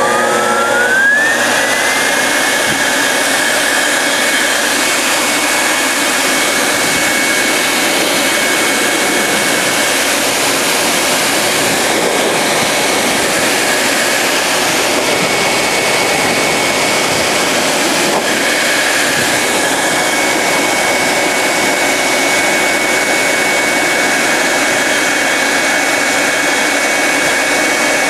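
Pet grooming blower (force dryer) running with a loud rush of air and a steady high whine. The whine rises in pitch over the first two seconds or so as the motor spins up, then holds steady while the nozzle blows through the English Angora rabbit's coat.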